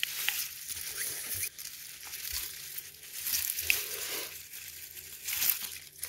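Tomato plants' leaves and vines rustling and crackling as a hand reaches in and picks green tomatoes.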